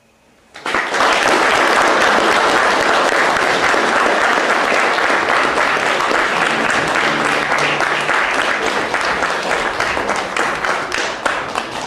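Audience applause, breaking out suddenly about half a second in and carrying on at a steady loud level, thinning a little towards the end.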